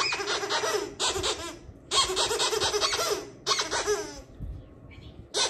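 A person laughing in several bursts, high-pitched and breathy.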